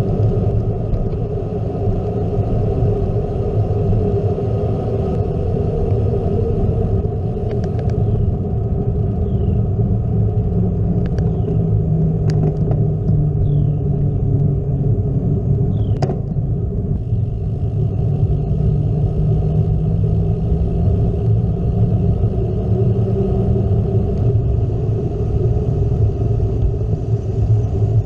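Steady wind rushing over the microphone, together with the rumble of a gravel bike's tyres rolling fast down cracked pavement.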